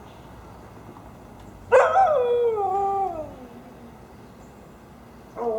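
Siberian husky howling: one long howl begins about two seconds in, starts high and slides down in pitch over about two seconds, and a second howl starts near the end.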